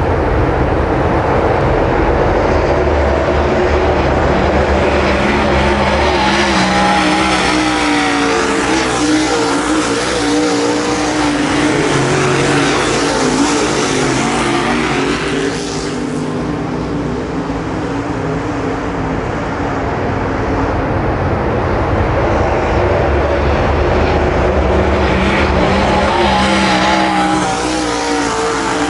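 Dirt late model race cars' V8 engines running hard around a dirt oval. Several engines are heard at once, their pitch rising and falling as cars pass close by, a little quieter about halfway through.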